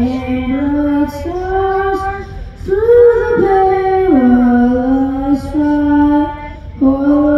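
A woman's solo voice singing without accompaniment: long held notes, sliding up and down between them.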